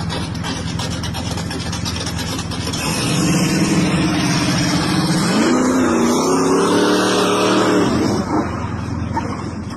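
Muscle car's engine revving hard as the car pulls out and accelerates away: it grows louder about three seconds in, climbs in pitch, holds high, then drops back near the end.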